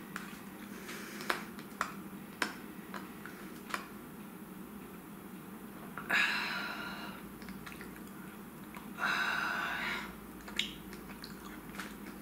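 A person chewing a piece of salted caramel dark chocolate: small wet mouth clicks and smacks throughout, with two breathy exhales, one about six seconds in and one about nine seconds in.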